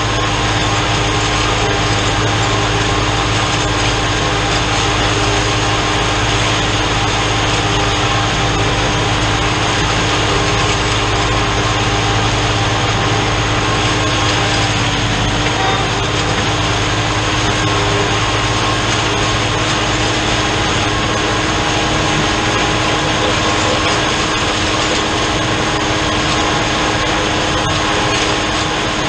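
New Holland TN70 tractor's diesel engine running steadily under load, with a drum mower spinning and cutting hay. The sound holds even throughout, with a constant whine over the engine drone.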